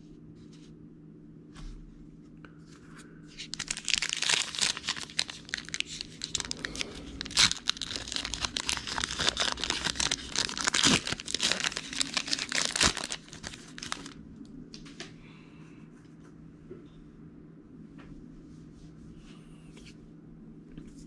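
A trading-card pack wrapper being torn open and crinkled: a dense crackling tear that starts about three and a half seconds in and stops about nine seconds later. Faint clicks of cards being handled come before and after.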